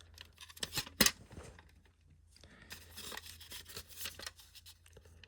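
Plastic smoke alarm casing being handled: a sharp click about a second in, then faint rubbing and scraping with small clicks.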